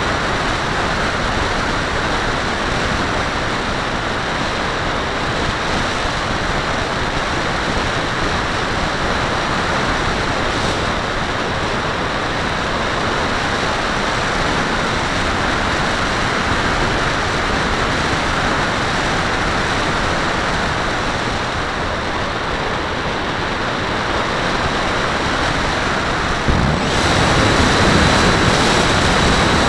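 Airflow rushing steadily over the wing-mounted camera's microphone in flight on a HobbyKing Walrus RC plane. Near the end the plane's motor comes in with a steady hum and a high whine, a little louder.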